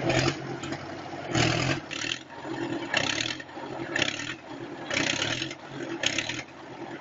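Diesel engines of tracked tractors running under heavy load as one tows the other out of deep mud with a rope: a steady engine hum broken by a short rasping burst about once a second.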